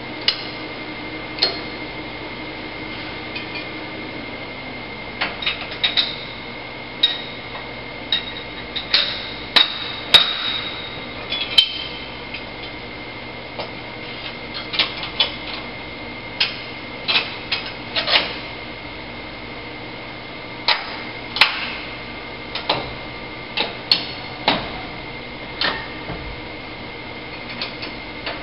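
Irregular sharp metal clicks and clanks, some ringing briefly, as steel parts are set into a welding fixture and its toggle clamps are worked by hand. Underneath, a steady machine hum and a high whine.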